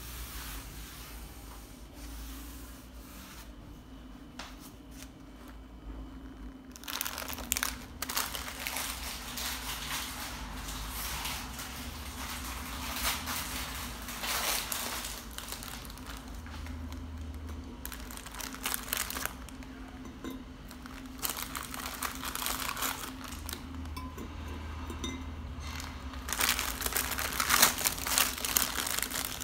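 Irregular spells of crinkling and rustling from something being handled, over a steady low hum.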